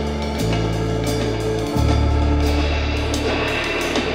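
Background music with a drum kit and sustained bass notes that change pitch twice.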